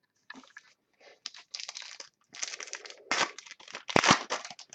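Football trading cards and their foil pack being handled: papery rustling and crinkling in short bursts, with a couple of sharper clicks about three and four seconds in.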